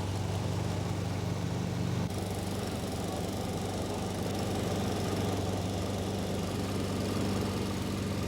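Small engine-driven water pump running steadily, pumping water out of a sunken wooden narrowboat's hull to refloat it. The tone shifts slightly about two seconds in.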